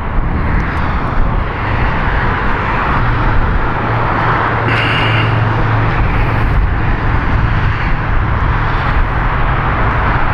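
Steady rushing noise with a low hum beneath it.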